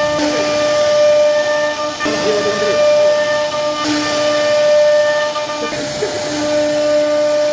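CNC router spindle running with a steady high-pitched whine over a hiss as its bit cuts grooves into a wooden panel. A lower hum comes and goes every couple of seconds as the cut changes.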